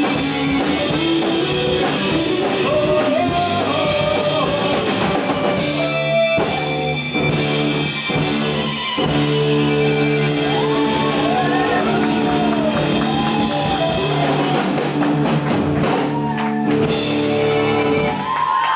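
Live punk rock band playing with a shouted lead vocal, electric guitars, drum kit and accordion. There is a short break about six seconds in; from about nine seconds the band holds a long, steady chord with the voice over it, and it stops shortly before the end.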